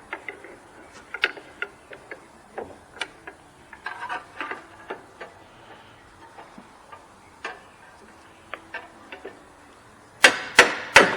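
Light metallic clicks and taps of tools working around a pickup's front hub, then near the end three loud hammer blows on metal, struck about half a second apart to drive out a stuck front CV axle.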